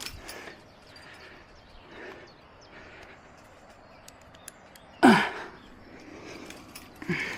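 A climber's heavy, effortful breathing: two loud voiced exhales that drop in pitch, the strongest about five seconds in and another near the end, with faint clicks of gear between them.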